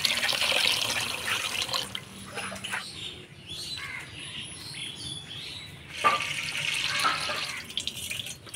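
Water splashing and swishing as Gobindobhog rice is washed by hand. It is loudest for the first couple of seconds, softer in the middle and swells again about six seconds in.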